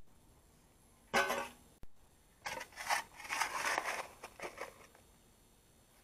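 Steel shovel blade scraping and crunching into stony soil: one short stroke about a second in, then a run of scrapes with stones clattering in the middle.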